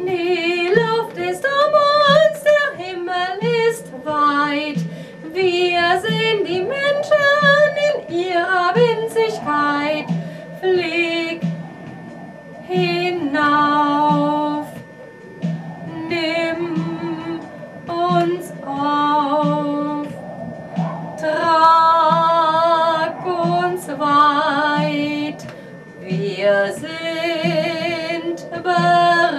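A woman singing a song in held, vibrato phrases over a sustained instrumental accompaniment.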